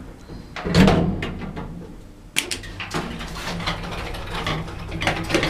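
Lift doors closing with a thud, then clicks and the steady low hum of the lift machinery running, with another knock near the end.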